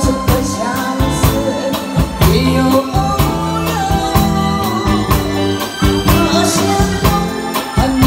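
A woman singing a Mandarin song into a microphone, amplified over a live band with guitar, keyboard and a steady drum beat.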